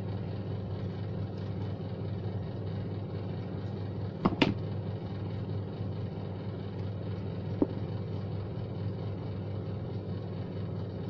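Steady low background hum, with a sharp click about four seconds in and a smaller one later, from handling a LAN cable and crimping tool.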